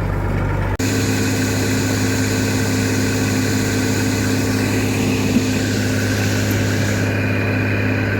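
Combine harvester running: a steady engine drone with a constant hum. The sound changes abruptly just under a second in.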